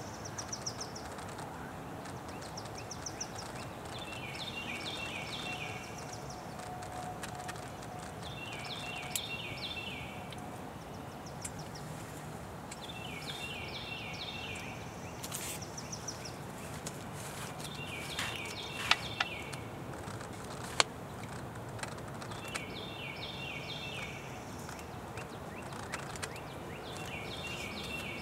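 A bird singing a short phrase of quick, high, falling notes, repeated about every four seconds, six times, over steady outdoor background noise.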